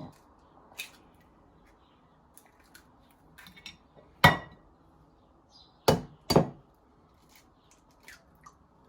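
Eggs cracked against the rim of a glass mixing bowl: a few sharp knocks, the loudest about four seconds in and a close pair about six seconds in, with faint clicks between.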